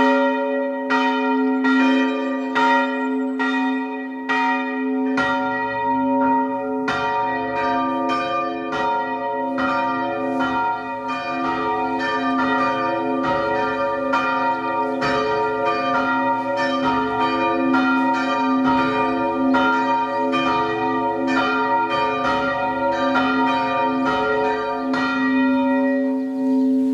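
Two church bells rung by hand with ropes, swinging and striking repeatedly with long ringing tones, the call to evening service. Strikes come about once a second at first; about five seconds in, a second, deeper bell joins and the two peal together.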